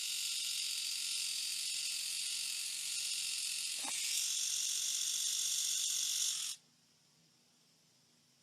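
A small electric eyebrow trimmer running with a steady, high, hiss-like buzz that cuts off suddenly about six and a half seconds in.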